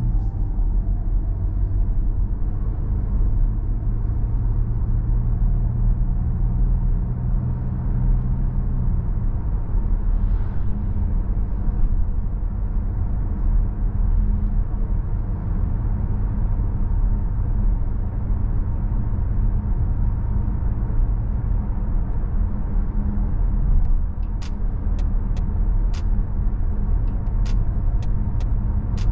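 A 2017 Volkswagen Tiguan's 1.4 TSI four-cylinder petrol engine running under way, with road rumble, heard from inside the car. The engine note shifts about nine seconds in, and near the end comes a run of sharp ticks.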